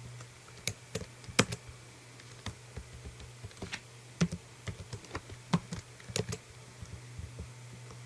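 Computer keyboard keystrokes, a dozen or so sharp taps at irregular intervals, over a steady low hum.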